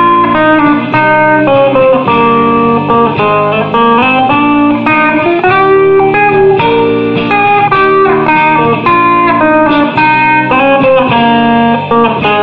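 Background music: an instrumental stretch of a song with a guitar playing the melody over chords.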